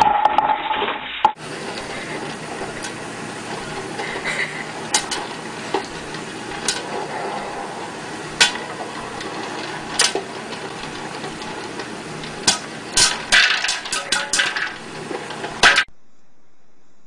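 Popcorn popping in an electric popcorn popper: a steady sizzle with sharp single pops, sparse at first and coming thick and fast near the end. A short loud noise sits at the very start, before the popping begins.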